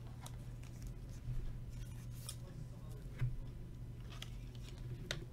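Faint clicks and light scrapes of trading cards being handled and shuffled by hand, about one a second, over a steady low hum.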